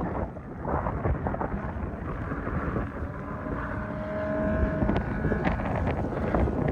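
Sandstorm wind buffeting the microphone: a heavy, gusting low rumble with no break, and a faint steady hum showing briefly near the middle.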